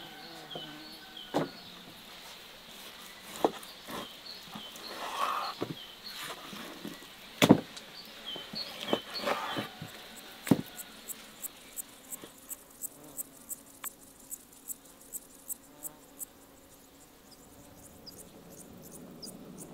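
Scattered knocks and clicks of handling work, then a run of about a dozen evenly spaced taps, roughly two a second, that stops about three-quarters of the way through, with crickets chirping in the background.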